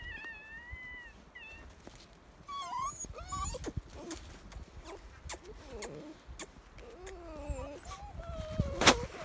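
Husky puppies whining and whimpering: several high, wavering cries that slide up and down in pitch, with a few short clicks and a loud knock near the end.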